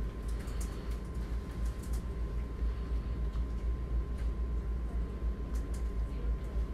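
Steady low rumble of background noise, with a faint constant whine and a few light clicks.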